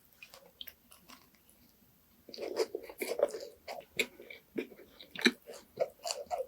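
Chewing a macaron close to the microphone. Faint mouth clicks come first; from a little over two seconds in, louder biting and chewing follows, full of sharp clicks.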